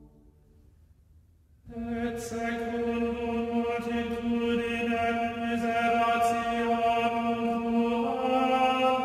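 Background music of chanting voices holding long steady notes. It comes in suddenly about two seconds in after a quiet gap, and the pitch steps up near the end.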